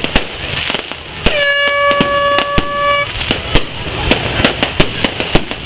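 Aerial fireworks going off in a rapid, irregular string of sharp bangs and crackles. About a second in, a horn sounds one steady tone for nearly two seconds.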